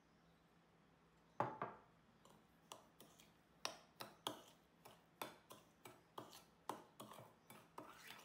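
A metal spoon clinking and scraping against a glass mixing bowl as sugar is stirred into pumpkin purée, in quick repeated strokes about two to three a second. A sharp knock about a second and a half in is the loudest sound.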